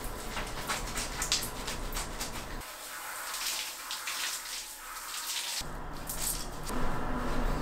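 Shower water spraying and splashing as hair is washed and rinsed under a handheld shower head, with dripping. The sound changes abruptly about a third of the way in and again near the end.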